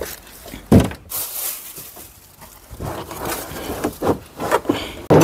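Handling noise: a thin plastic shopping bag crinkling and rustling as it is picked up and moved, with one sharp knock about a second in, then irregular rustling and small knocks as carpet and loose items are shifted.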